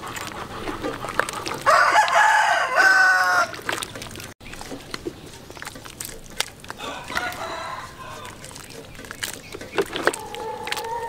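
A rooster crows once, loudly, about two seconds in, with fainter chicken calls later on. Light clinks of a metal ladle against a steel cooking pot are heard throughout.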